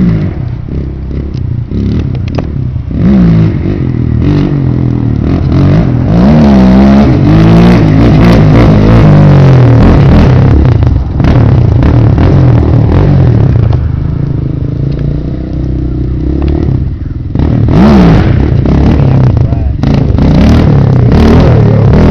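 Suzuki Z400 sport quad's single-cylinder four-stroke engine revving hard again and again, its pitch sweeping up and falling back, over a steady low rumble.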